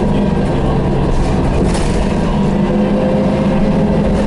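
Detroit Diesel 6V92TA two-stroke V6 diesel of a 1990 MCI Classic city bus running steadily with the bus under way, heard from inside the passenger cabin.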